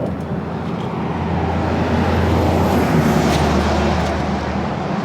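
Tour bus driving, its engine hum and road noise heard from inside the cabin, swelling a little in the middle and easing slightly near the end.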